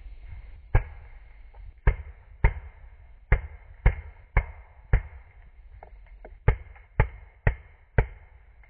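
A magfed paintball marker firing single shots, about eleven sharp pops spaced half a second to a second apart, with a short pause in the middle where a few fainter pops are heard.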